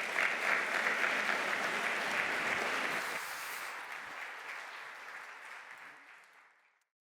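Audience applauding at the end of a speech, the clapping strongest at first, then thinning out and dying away about six seconds in.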